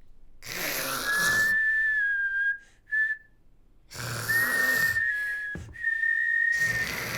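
Exaggerated cartoon snoring from an old woman: three loud snores, each carrying a high steady whistle.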